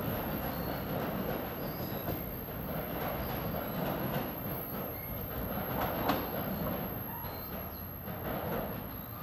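NJ Transit commuter train pulling away from the station, a steady rumble of wheels on rail with clicks over the rail joints and a few brief high wheel squeals, growing slightly fainter as it recedes.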